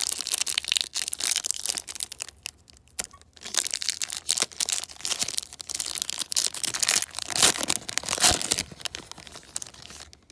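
Foil hockey-card pack wrappers being torn open and crinkled by hand: a dense crackling rustle with a short lull about three seconds in, loudest around seven to eight seconds in.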